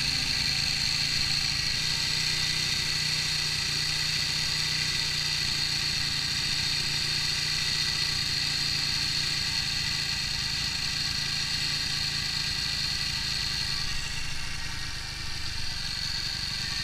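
TVS Apache RTR 200's single-cylinder engine idling steadily at a raised idle of about 3,000 rpm while its carburettor fuel screw is turned in, leaning the mixture.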